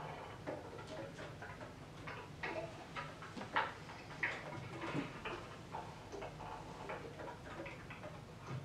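Bass clarinet played with percussive extended technique: irregular, sharp key clicks with no held note standing out.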